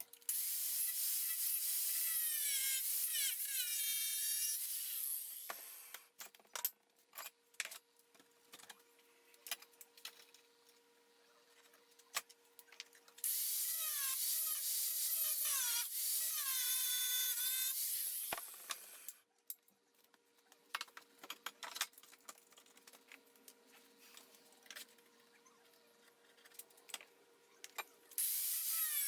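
A power tool cutting steel angle iron, in three loud, hissy runs of about five seconds each, with a shifting whine as the blade works through the metal. Between the cuts come clicks and clatter as the steel is handled.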